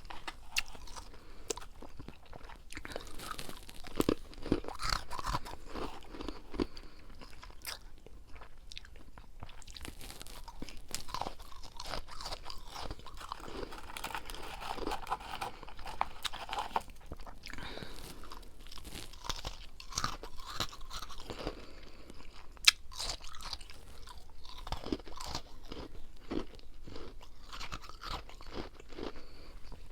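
Freezer frost being chewed up close to the microphone: a continuous run of irregular crunches and crackles, with one sharper crunch about two-thirds of the way through.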